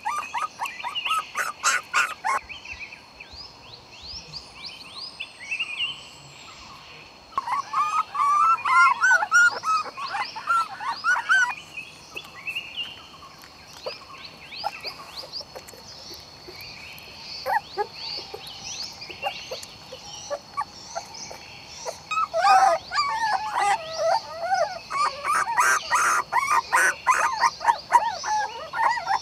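Young puppies whimpering and squeaking in quick, high-pitched yelps, in two busy bouts, one about a third of the way in and one near the end. A steady high whine runs underneath.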